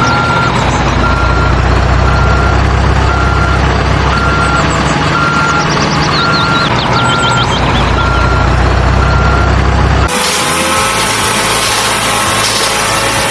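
Truck reversing alarm beeping steadily about once a second over a low engine rumble, with a few high chirps in the middle. The sound cuts off abruptly about ten seconds in and other sounds take over.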